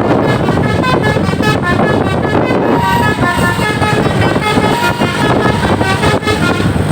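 A bus's basuri musical horn playing a tune of short notes that change pitch quickly from one to the next, over engine and wind noise.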